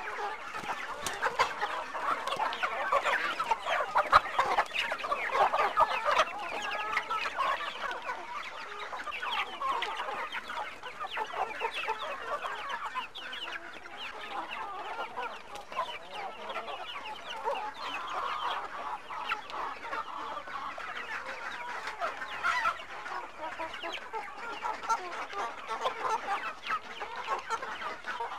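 A large flock of village chickens (ayam kampung) clucking all at once, many overlapping calls as the birds crowd excitedly around the feed. There is a sharp knock about four seconds in.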